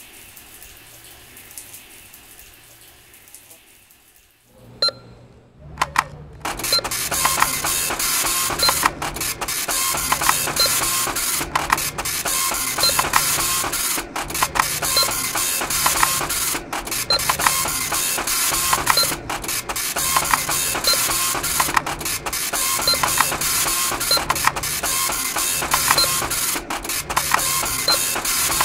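A cash-register receipt printer printing: a dense, rapid rattle of clicks over a regular pulsing feed. It starts about six seconds in, after a few quiet seconds and a sharp click.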